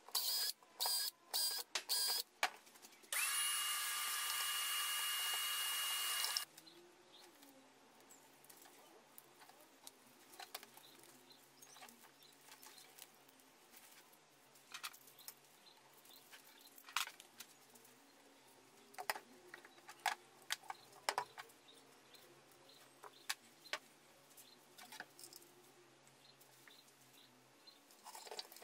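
Handheld power drill boring pilot holes in the top panel of a subwoofer enclosure: several short trigger bursts, then a steady whir of about three seconds. After that come only quiet scattered clicks and handling noises.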